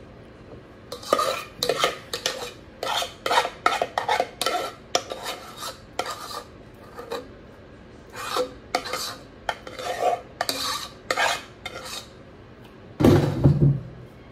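A spoon or other utensil scraping and knocking against a dish in a run of short, irregular strokes, as food is stirred or spooned out. A heavier knock near the end is the loudest sound.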